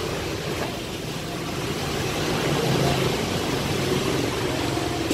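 Road traffic going by: a steady hum of vehicle engines that swells a little past the middle.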